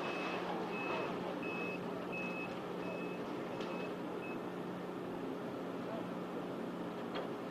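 Heavy demolition machinery running with a steady engine hum, while a machine's backup alarm beeps about seven times, evenly spaced, stopping about four seconds in.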